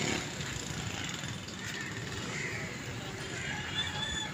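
A bird calling a few times, short calls spaced through the middle and end, over a steady low background rumble.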